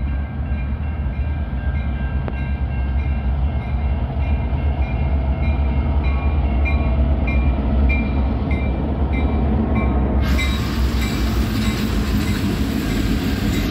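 BNSF diesel switcher locomotive hauling a freight train past, its engine running with a strong steady low drone, while the level-crossing bell rings about three times a second. About ten seconds in, a loud hiss comes in as the locomotive passes close.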